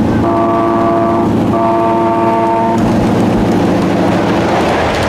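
Two blasts of a multi-note horn on a ridable scale-model diesel locomotive, the first about a second long and the second a little longer, both in the first three seconds, over the steady low running noise of the passing train.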